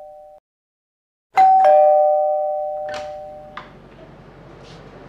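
Two-tone doorbell chime ringing ding-dong, a high note then a lower one about a second and a half in, its ring cut off short. Two sharp clicks follow near the end of the ringing.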